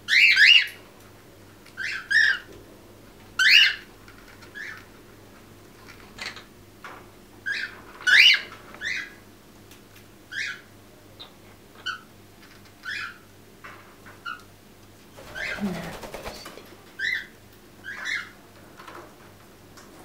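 Quaker parrots (monk parakeets) give short, high chirps in uneven groups of one to three, every second or two. About fifteen seconds in there is a brief rustle lasting about a second.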